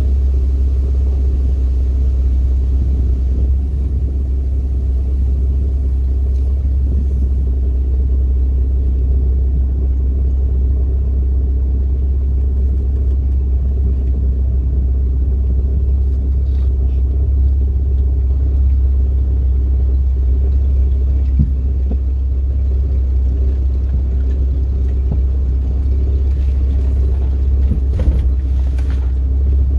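Jeep Wrangler TJ running and crawling along a dirt trail, heard from inside the cab as a steady low rumble. A couple of light knocks come near the end.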